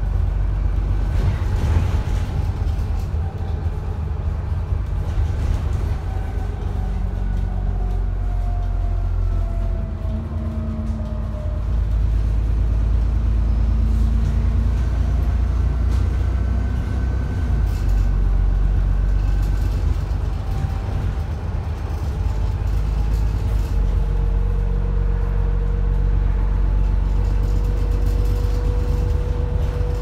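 ADL Enviro 400 double-decker bus driving along, heard from inside the lower deck: the diesel engine's deep, steady running with the whine of its turbocharger sliding down and back up in pitch. The whine settles into a steady tone for the last several seconds.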